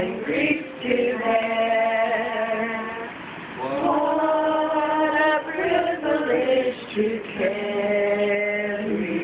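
A small group of voices, men, women and children, singing together unaccompanied in three long-held phrases with short breaks between them.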